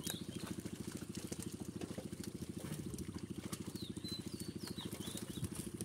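A small engine running steadily at an even, fast pulse, with a few bird chirps about four seconds in.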